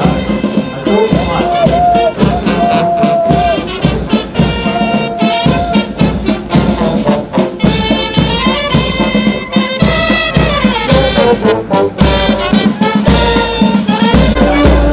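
Military brass band playing march music, with trumpets and trombones carrying the tune.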